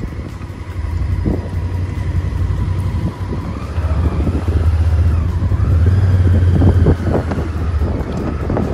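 Motorhome's engine and road noise heard from inside the cab while driving: a steady low rumble that grows louder in the middle.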